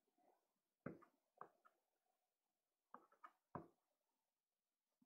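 Faint short scratches of a soft pastel stick stroked across sanded Pastelmat card, about six quick strokes in two clusters.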